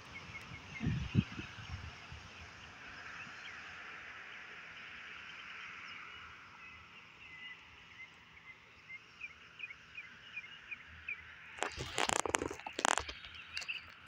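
Rural outdoor ambience with birds chirping, a run of short, high chirps in the second half. Near the end a few loud rustling bursts cut across everything.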